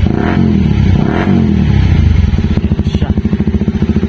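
Honda CBR150R single-cylinder engine running through an aftermarket Akrapovic muffler, revved up and back down twice in the first two seconds, then settling to a steady idle.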